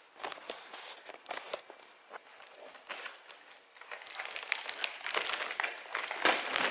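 Packaging crinkling and rustling as a gift box is opened, with many small clicks and knocks, getting busier and louder in the last few seconds.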